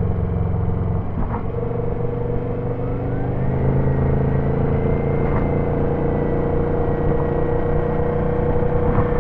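Twin-turbo Subaru engine pulling on the move, with a thin turbo whine that rises about three seconds in and then holds steady. The engine note breaks briefly about a second in, and a few short clicks sound over the run.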